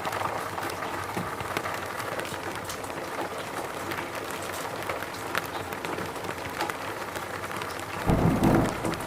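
Steady rain falling in a forest, a dense patter of individual drops. Near the end a short, loud low rumble stands out over the rain.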